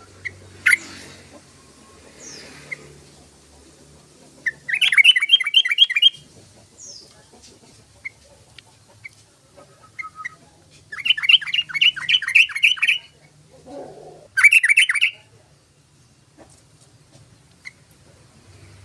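Yellow-vented bulbul (trucukan) singing in three bursts of fast, bubbly repeated notes, about five or six a second. The middle burst is the longest. Scattered single chirps fall between the bursts.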